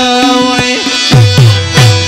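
Tabla and harmonium playing an instrumental passage between sung lines: held harmonium and keyboard notes under quick tabla strokes. In the second half there are three deep bayan strokes, each sliding down in pitch.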